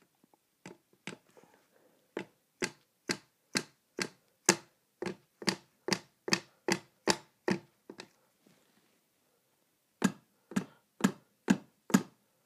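Soft-faced hammer knocking a 3D-printed ABS part stuck to a glass print bed, in repeated sharp taps about two a second, to break the part's bond with the glass. The tapping stops for about two seconds around eight seconds in, then picks up again a little faster.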